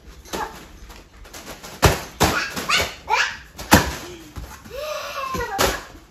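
Foil balloons being batted and swung, giving several sharp crinkly smacks, while a toddler squeals and laughs with high rising and falling cries.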